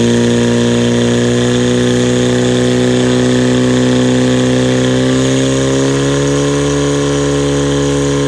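Portable fire pump's engine running at high, steady revs while pumping water out through the hoses. Its pitch steps up slightly about six seconds in.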